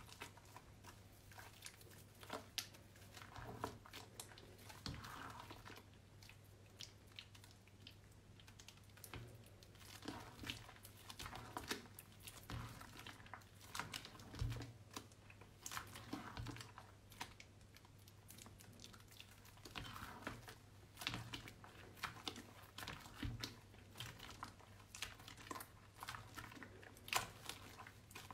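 Hands squeezing and kneading soaked, mushy bar soap: irregular soft squelches and crackles of the wet soap paste between the fingers.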